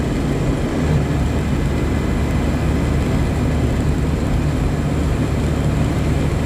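Dump truck's diesel engine running with a steady low drone.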